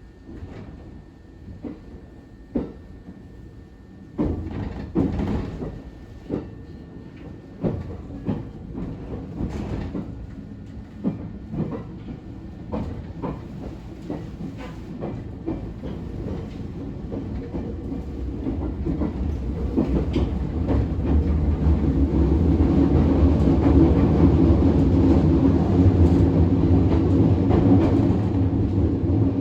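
ET127-series electric train with Toyo IGBT inverter drive, heard from on board: the wheels give sharp, irregular clicks over the track, and the running noise grows steadily louder from about halfway through as the train gathers speed.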